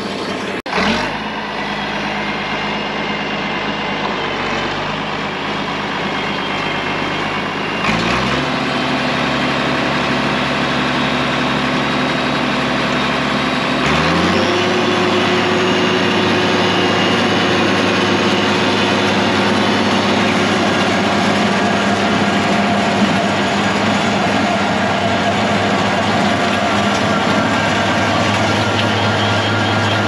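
International Harvester 1206 tractor's turbocharged six-cylinder diesel running steadily, revving up in two short rises about eight and fourteen seconds in, then holding at the higher working speed.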